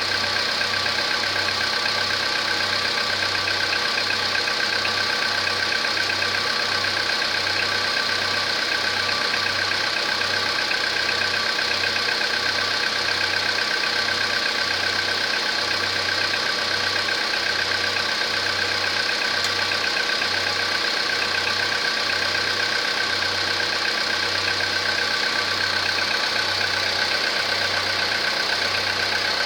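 Volkswagen Polo Sedan's 1.6-litre four-cylinder petrol engine idling steadily, with knocking sounds that the owner suspects are piston knock, even though the engine already has the upgraded pistons.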